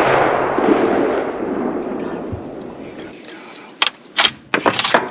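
Tail of a rifle shot: its rolling echo dies away over about three seconds. Near the end, a quick series of sharp clacks as the rifle is handled in the stand.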